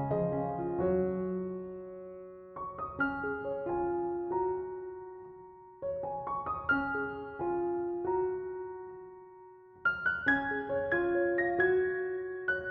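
Background piano music: gentle phrases of struck notes that ring and fade, with a new phrase beginning about every three seconds.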